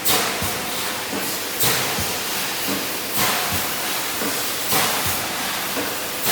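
Wire mesh welding machine cycling: a sharp burst of hiss that fades, repeating about every one and a half seconds over a steady machine hum.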